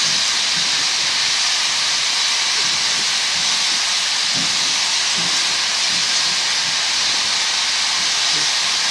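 Steady, loud hiss of steam venting from three standing steam locomotives: a 2-8-2T tank engine, a three-truck Climax and a three-truck Heisler. The hiss holds even throughout, with no exhaust beat, since the engines are not moving.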